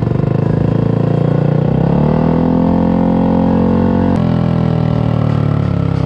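Yamaha NMAX v2 scooter's single-cylinder engine revved once through an aftermarket twin-tip exhaust. The pitch climbs over about two seconds, holds high, then drops back toward idle near the end.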